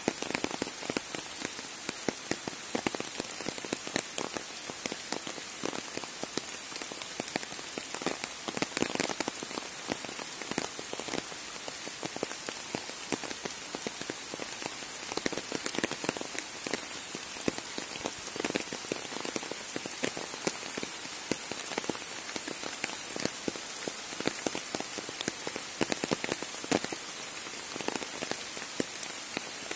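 Steady rain falling, with many individual drops tapping close by. A thin, steady high whine sits behind it.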